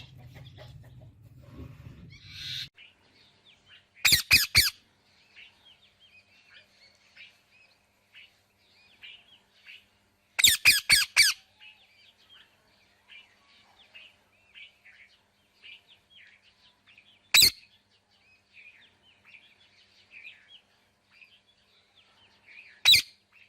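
Parrot squawking in loud, sharp bursts: a quick run of squawks about four seconds in, a longer rapid run around ten seconds, then two single squawks, with faint chirping in between.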